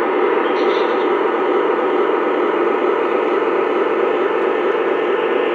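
Lionel O-gauge Amtrak Acela train set running past on three-rail track: a steady, unbroken whirr of the wheels and motors.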